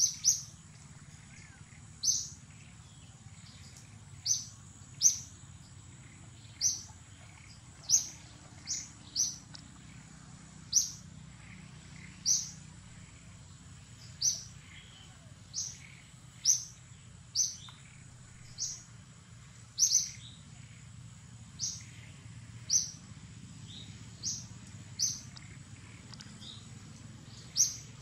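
A bird calling with short, sharp, high chirps, about one a second at uneven intervals, over a steady thin high-pitched whine.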